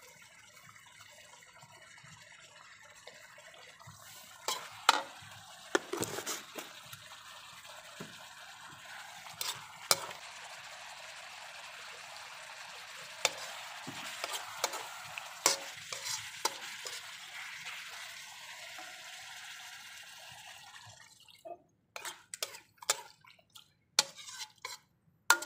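Beef stew sizzling in a wok while a metal spoon stirs it, clinking and scraping against the pan. Near the end the sizzle stops and only a few spoon knocks remain.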